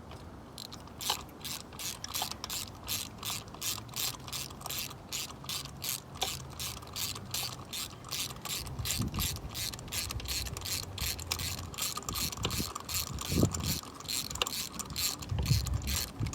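Socket ratchet clicking in quick, even strokes, about three a second, as a spark plug is unscrewed. A few dull low knocks come in the second half.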